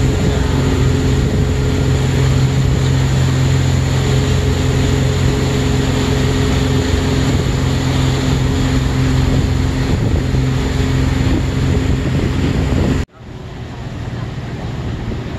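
Small fishing boat's engine running steadily under way, a constant hum over the rush of the wake and wind on the microphone. About 13 seconds in the sound cuts off suddenly to a much quieter engine hum.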